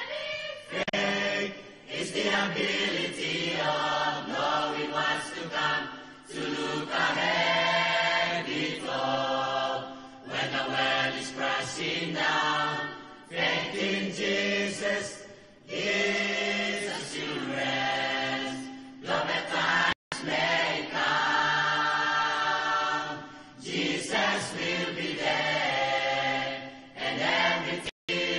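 Mixed choir of young male and female voices singing a gospel song in parts, in phrases with short breaths between. The sound drops out for an instant twice near the end.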